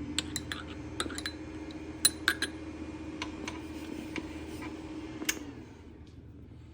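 Metal spoon clinking and tapping against an espresso cup, about ten sharp clicks at uneven intervals, over a steady low hum that cuts off about five and a half seconds in.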